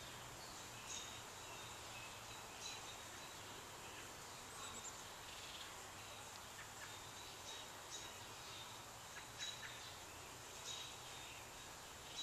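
Faint outdoor ambience: short, high bird chirps every second or two over a steady hiss.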